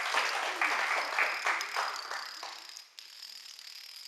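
Plastic dominoes toppling in a chain, a dense rapid clatter that dies away about two and a half seconds in.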